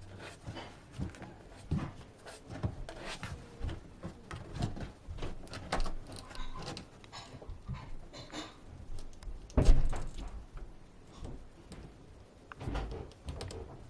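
A cat scrabbling and clambering in a box: irregular rustling, scratching and light knocks, with one loud thump a little past the middle.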